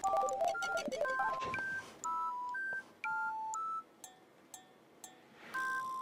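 Background music: a simple electronic melody of pure, beep-like tones, two notes sounding together at a time, in short phrases with brief pauses between them.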